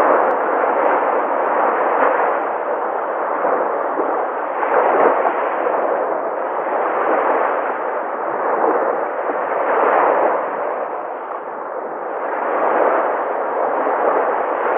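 Ocean waves breaking on a shore: a continuous rushing wash of surf that swells as each wave breaks and falls back every few seconds.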